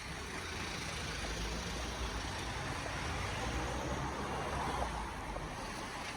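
A car driving past on the street: tyre and engine noise with a low rumble that swells through the middle and eases off near the end.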